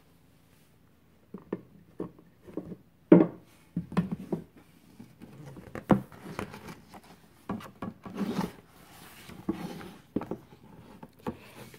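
A hardcover picture book being handled and opened, its stiff pages turned by hand: scattered taps and knocks with soft paper rustling, the loudest knock about three seconds in.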